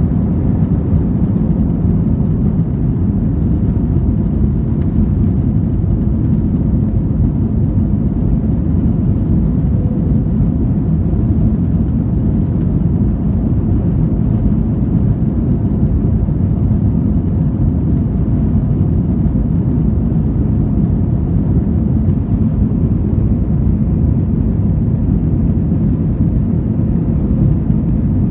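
Airbus A321's jet engines at takeoff thrust, heard from inside the cabin: a loud, steady, deep rumble through the end of the takeoff roll and the initial climb.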